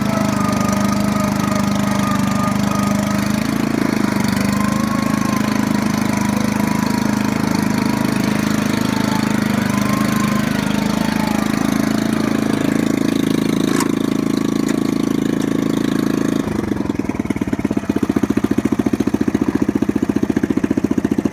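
5-horsepower Briggs & Stratton single-cylinder engine of a Landmark 5-26 riding mower running steadily after a cold start from winter storage. About three-quarters of the way through it drops to a slow, uneven idle, with each firing pulse plainly audible.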